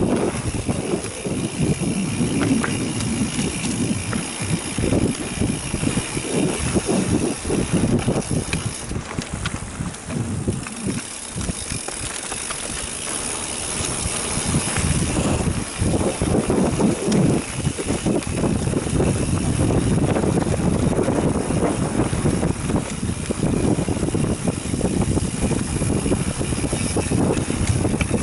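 Mountain bike ridden over a dirt singletrack, picked up close by the rider's camera: a steady rattle of the bike and tyres over the bumpy ground.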